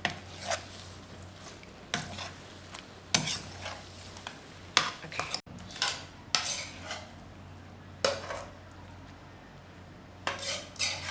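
A serving spoon scraping and clinking against a pan, about ten separate irregular strokes, as fried chicken in a thick milk sauce is scooped out onto a plate.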